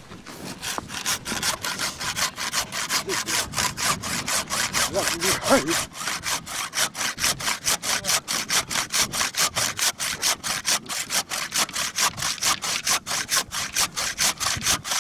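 A hand saw cutting through a reindeer bull's antler near its base, in quick, even back-and-forth strokes of about four a second: the antlers are being sawn off the restrained bull.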